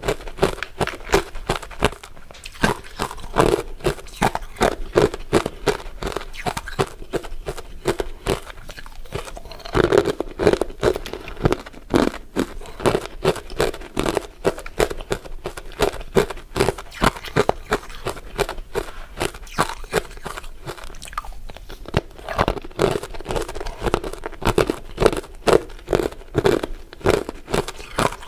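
Close-miked crunching and chewing of crisp crystal ice dessert pieces: a dense run of sharp crackling bites that keeps up with only brief lulls.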